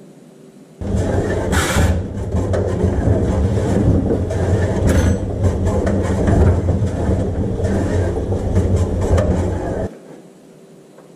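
A machine runs for about nine seconds with a steady low hum and a dense rattle, starting abruptly about a second in and cutting off abruptly near the end.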